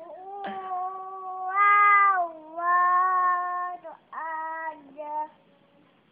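A toddler chanting Quran recitation (ngaji) in long, drawn-out sung notes: five held notes of falling length, the loudest and highest about two seconds in, falling silent about a second before the end.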